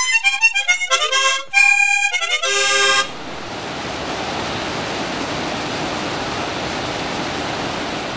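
Harmonica melody that cuts off about three seconds in, giving way to the steady rush of a rocky river running over boulders.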